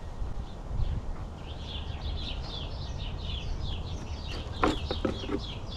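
A small bird calling in a fast run of short repeated high chirps, about four or five a second, starting about a second and a half in, over low wind rumble on the microphone.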